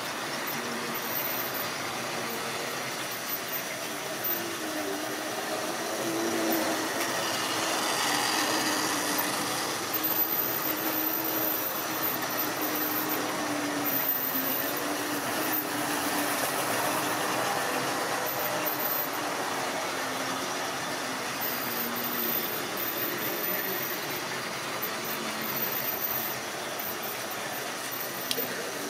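Tri-ang OO-gauge model train running on sectional track: a steady running clatter of the small wheels on the rails, with a hum that wanders up and down in pitch.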